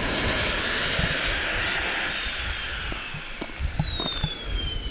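Small turbojet engine whining at a steady high pitch with a rush of exhaust, then spooling down: from about two seconds in the whine falls steadily in pitch as the engine winds down after being throttled off. A few light ticks sound during the wind-down.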